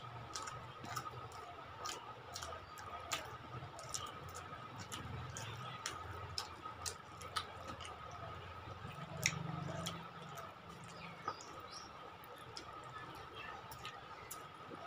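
Quiet sounds of people eating rice and curry with their hands: soft squishes of rice being mixed by the fingers, chewing and lip smacks, heard as many small scattered clicks over a faint steady whine.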